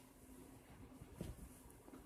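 Near silence: room tone with a faint steady hum and one soft, short thump just after a second in.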